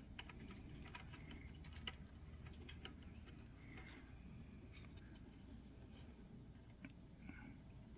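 Faint, scattered light clicks and taps of small metal parts being handled on a Smith Premier No. 10 typewriter while its ribbon is being fitted, over a low steady hum.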